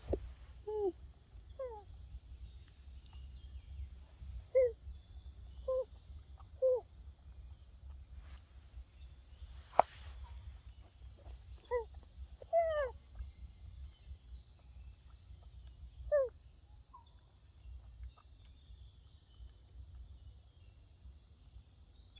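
Young macaques giving short, falling squeaky calls, about eight in all and spaced irregularly, over a steady high-pitched drone of insects. There is one sharp click about ten seconds in.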